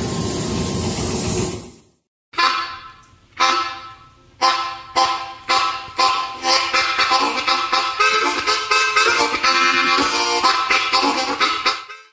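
A steady rushing noise cuts off about two seconds in. Background music then plays: a melody of sharply struck notes that ring and fade, ending just before the close.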